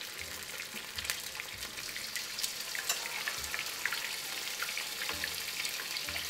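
Eggs frying in hot extra virgin olive oil in a frying pan: a steady sizzle dotted with small crackles and pops.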